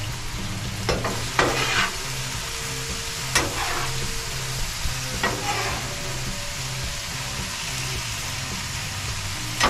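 Beef and sauce sizzling steadily on a Blackstone steel flat-top griddle, with a spatula scraping and tossing the meat across the griddle top a few times.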